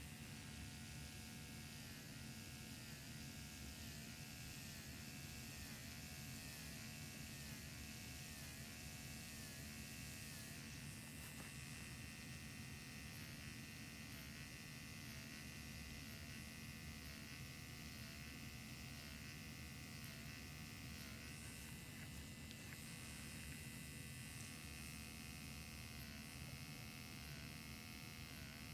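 Motorized FUE punch buzzing steadily while grafts are harvested, its pitch dipping and recovering over and over, roughly every half second to second, with a short break in the dips about ten seconds in.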